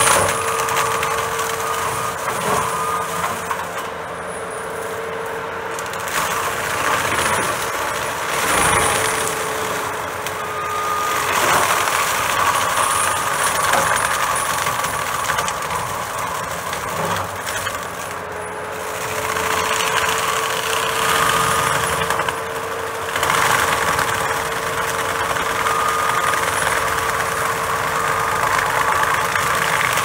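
John Deere 331G compact track loader running a forestry mulcher head, grinding pepper trees into mulch. A steady machine whine runs under repeated swells of shredding noise as the drum bites into the wood; the whine sags partway through and climbs back about two-thirds of the way in.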